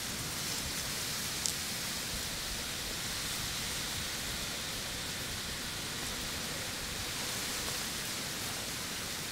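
Steady, even hiss of outdoor background noise, with one short sharp click about one and a half seconds in.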